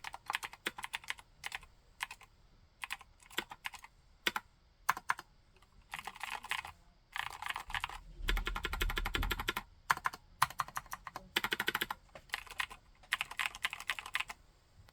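Typing on a 60% mechanical keyboard with Cherry MX White switches and MT3-profile keycaps: runs of fast keystrokes broken by short pauses, the densest run about eight seconds in. The typing stops just before the end.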